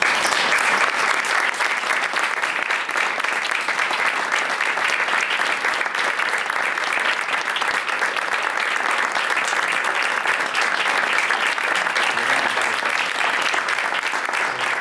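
Audience applauding: dense, steady clapping that starts all at once and carries on without a break.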